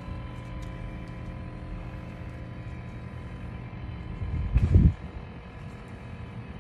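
Steady low outdoor rumble, swelling to a loud low surge about four and a half seconds in. Faint small metallic clicks come from brake pads and clips being handled at a front caliper.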